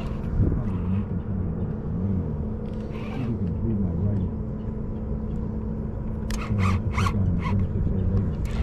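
A steady low motor hum, with a short rasp about three seconds in and a quick run of four or five sharp rasps between about six and seven and a half seconds in.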